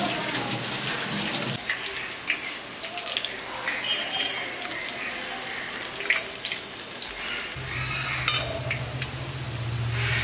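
Freshly dropped potol piyaji (pointed gourd and onion fritters) deep-frying in hot oil in an aluminium kadai: a steady, vigorous bubbling sizzle with frequent sharp crackles, and occasional scrapes as a spatula turns the fritters. A low hum comes in about seven and a half seconds in.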